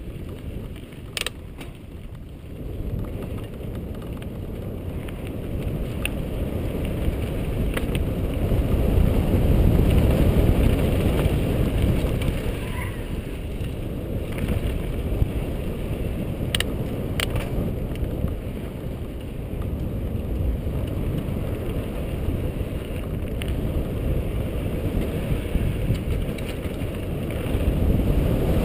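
Mountain bike rolling fast down a dry dirt and rock singletrack: wind rumble on the camera microphone mixed with tyre noise on the dirt, growing louder as speed picks up, with a few sharp clicks and knocks from the bike over rocks.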